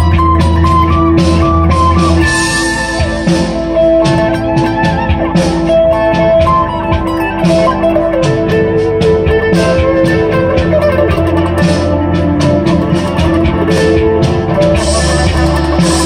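Electric guitar played through a Framus Dragon tube amp: an improvised lead line of quick picked single notes over a steady held tone. A deep low note drops out about two seconds in and returns near the end.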